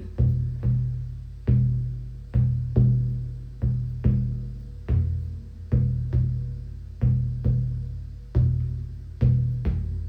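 Shamanic drum beaten in a steady, loosely paced rhythm, about one and a half deep, booming strikes a second, each ringing out and fading before the next.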